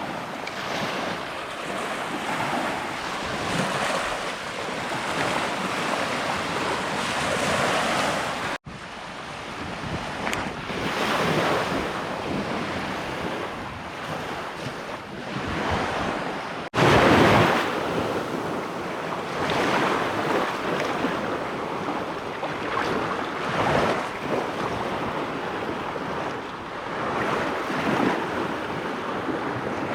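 Gulf of Mexico surf washing onto a sandy beach, surging and easing, with wind buffeting the microphone. The sound breaks off abruptly twice, about nine and seventeen seconds in, and is loudest just after the second break.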